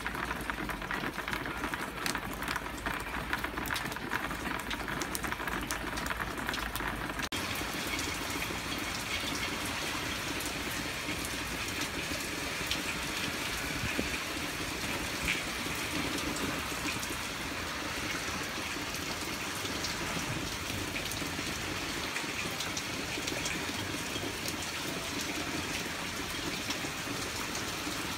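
Hard rain. At first, close drops hit and splash on a flooded ledge in many sharp little clicks; after about seven seconds this gives way to a steadier, even rush of the downpour.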